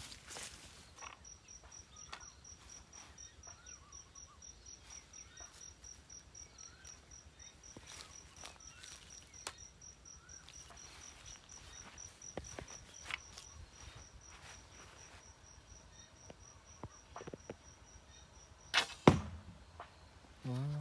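A high, even chirping of an insect, about four chirps a second, that stops about two seconds before the end. Faint scattered clicks run through it, and there is one sharp knock near the end.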